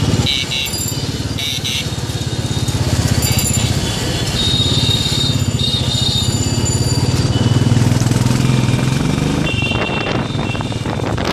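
Motorcycle engine running at low speed through street traffic, louder about two-thirds of the way through, with short vehicle-horn beeps, two of them in the first couple of seconds and more later on.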